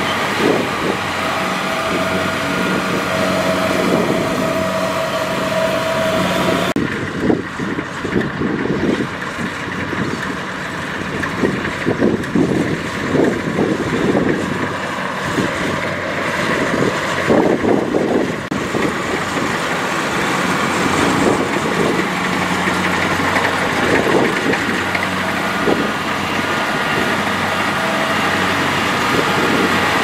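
Kubota DC-70 rice combine harvester running: its diesel engine and threshing machinery hum steadily as it travels on rubber tracks and cuts rice. About 7 s in the sound turns rougher, with irregular crackling over the engine, and about 18 s in the steadier hum returns.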